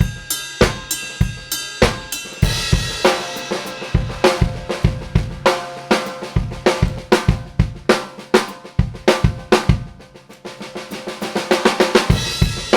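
Acoustic drum kit heard through a single mono room microphone, a U47 into a 1073 preamp: kick, snare, hi-hats and cymbals playing a steady groove. Around ten seconds in the hits thin out and the level dips briefly before the cymbals swell back in.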